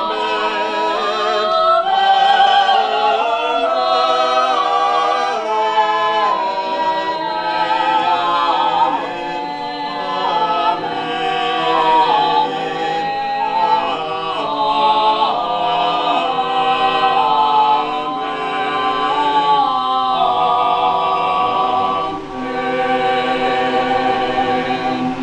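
Choir singing a slow choral benediction in long, held chords, apparently unaccompanied.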